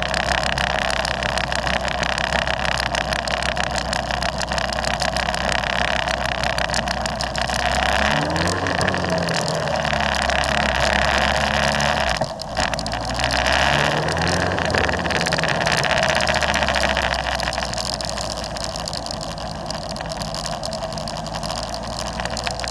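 Motorcycle engines running while riding in a group at town speed, with steady wind and road noise on the microphone. About a third of the way in, the engine pitch climbs, breaks off briefly near the middle, climbs again and then eases back down.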